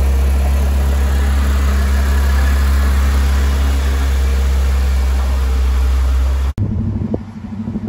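Porsche 911 GT3's flat-six engine running at a steady low idle as the car creeps away, a deep even drone. It cuts off suddenly near the end.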